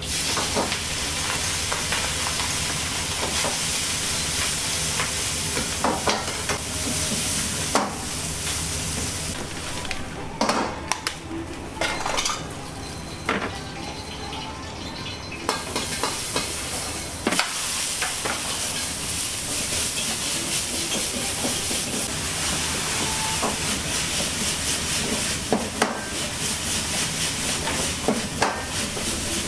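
Food sizzling and frying in a wok over a high gas flame, with a steady rumble under the hiss, as a chef stir-fries; the metal ladle knocks and scrapes against the wok every few seconds.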